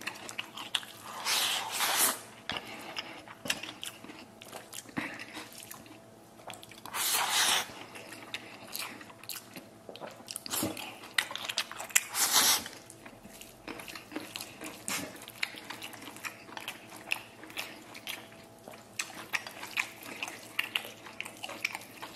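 A person eating close to the microphone: chewing rice mixed with stewed lamb and potatoes, with chopsticks clicking and scraping against a ceramic bowl. Three louder bursts come about a second and a half, seven and twelve seconds in, as rice is shovelled into the mouth.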